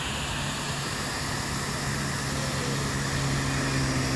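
A motor vehicle engine humming steadily, growing louder toward the end, over a constant rushing noise of water pouring over a lake weir.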